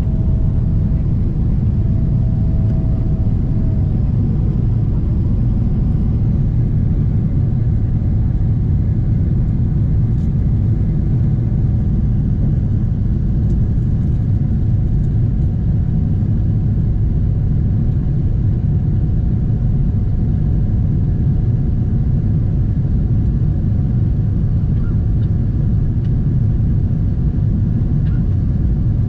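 Inside the cabin of a Boeing 777-300ER climbing after takeoff: the GE90-115B engines and the airflow make a loud, steady rumble, with a faint steady hum above it.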